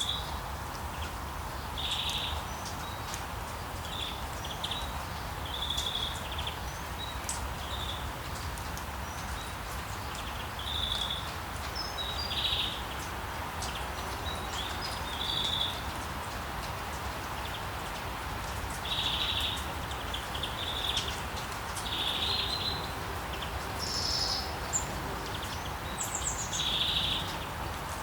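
Small birds chirping in short bursts every second or two, with a few higher calls near the end, over a steady background hiss and low rumble.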